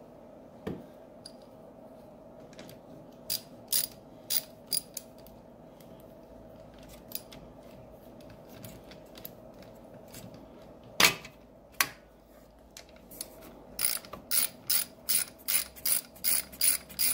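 Socket ratchet clicking as it turns the exhaust mounting bolts on a Yamaha QT50 moped. Scattered single clicks and one louder knock about 11 seconds in give way near the end to a steady run of ratchet clicks, about three a second, as a bolt is run in.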